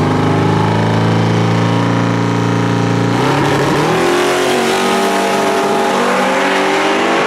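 Twin-turbo LSX V8 in a box Chevy drag car held at steady high revs on the starting line, then launching about three seconds in. Its note turns rougher and shifts in pitch as it pulls away down the strip.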